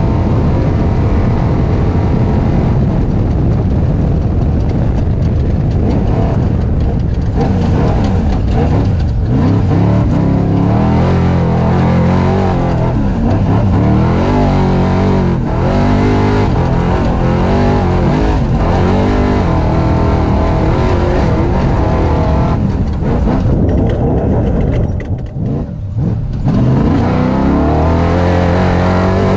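Off-road race truck's engine heard from inside the cockpit, revving up and down repeatedly as the driver accelerates and backs off. It briefly drops away about three-quarters of the way through before picking up again.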